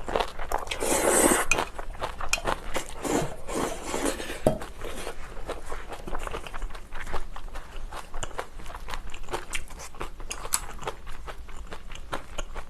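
Eating instant ramen with kimchi: a noisy noodle slurp about a second in, then chewing and crunching of the kimchi with many small clicks of chopsticks against the bowl.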